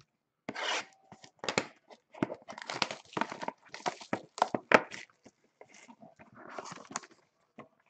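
Trading card boxes being handled on a table: irregular knocks, scrapes and rustles as a box is slid, lifted and set down.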